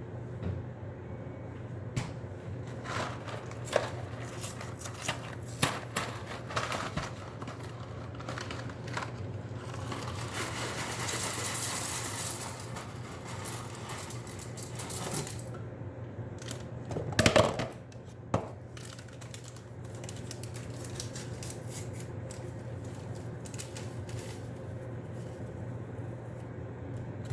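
Cooking sounds: a spoon clicking and scraping in a pot as a mix is stirred, a few seconds of hissing midway, and a louder clatter about two-thirds of the way through, over a steady low hum.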